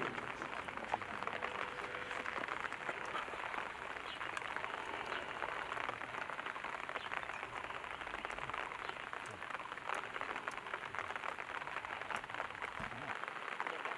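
Gloved hands scraping and brushing loose, crumbly soil away from a buried coffin: a steady fine crackling rustle of dirt.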